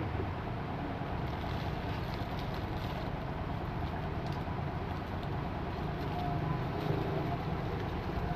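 Diesel generator engine running steadily: a low, even drone.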